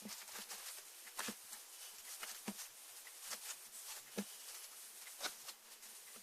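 Slime being squished and poked by hand, making faint, irregular sticky clicks and small pops, with a few louder pops about a second apart.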